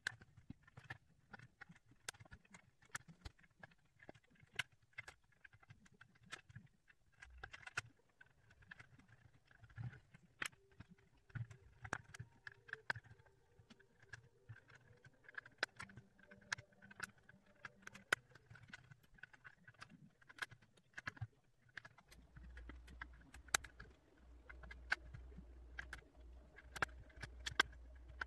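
Small plastic puzzle pieces clicking and tapping as they are pressed into place on a Ravensburger 3D puzzle ball, in many irregular sharp clicks. A low steady hum comes in about two-thirds of the way through.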